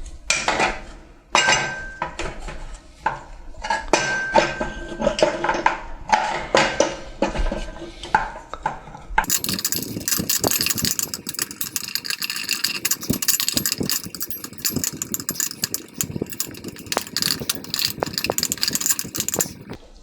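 Irregular clicks, taps and scraping as a homemade dowel tire tool is worked around a 10-inch band saw wheel, pressing a new urethane tire evenly into place. About nine seconds in the sound turns brighter and the clicking grows denser.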